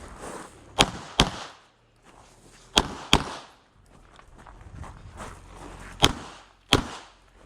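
Glock 17 9mm pistol firing six shots in three quick pairs, the shots in each pair less than a second apart, with a couple of seconds between pairs.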